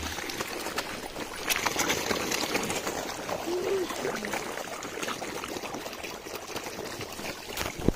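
Steady splashing and trickling of river water stirred by a dense shoal of mahseer fish feeding at the surface. A short vocal sound comes about halfway through and a sharp knock near the end.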